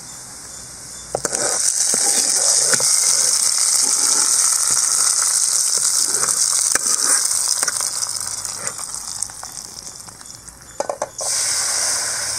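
Hot-oil tempering of mustard seeds, shallots and curry leaves poured into sambar, sizzling loudly from about a second in and dying down over several seconds. Near the end a ladle of sambar poured into the hot pan sets off a short, sharp sizzle again.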